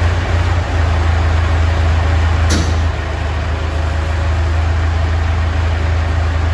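International 784 tractor engine running steadily with a deep, even hum. A single sharp click cuts through about two and a half seconds in.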